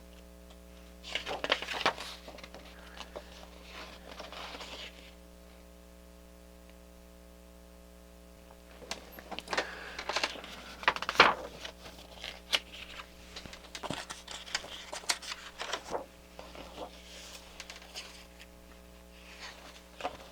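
Paper rustling as the pages of an owner's manual are handled and turned, in short scattered bouts about a second in, around four seconds in, and again and again from about nine to seventeen seconds. A steady low hum runs underneath.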